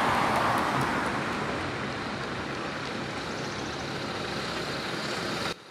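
Road traffic noise: a vehicle going past close by, loudest at the start and settling into a steady rush, cut off suddenly near the end.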